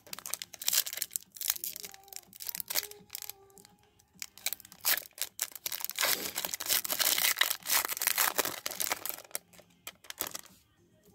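Silver foil wrapper of a hockey trading-card pack crinkling in the hands and then being torn open, with a dense stretch of crackling tearing from about five seconds in until near the end.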